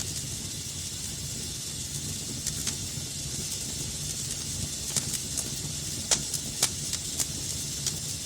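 Wood fire burning in a fireplace: a steady hiss and low rumble with scattered sharp crackles and pops, the loudest a little past halfway.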